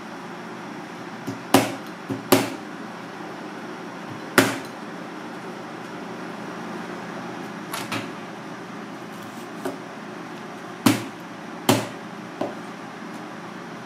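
Chef's knife chopping down through skin-on fish pieces onto a plastic cutting board: about eight sharp knocks at irregular intervals over a steady background hum.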